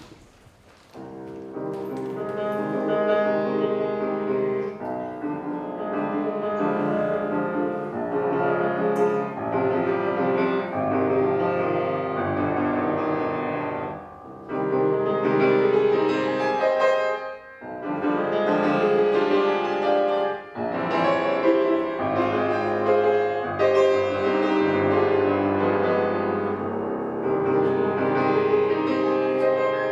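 Solo piano playing a classical student piece, starting about a second in, with two brief breaks in the middle.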